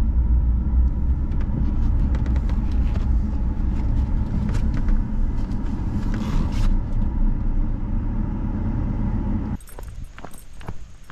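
Truck cabin road noise while driving: a steady low rumble of engine and tyres. About nine and a half seconds in it cuts off suddenly, leaving a much quieter background with a few light clicks and jingles.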